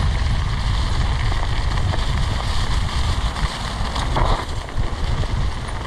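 Wind buffeting a GoPro's microphone during a fast downhill mountain-bike run, with the bike's tyres rolling over dry fallen leaves, a steady rushing rumble.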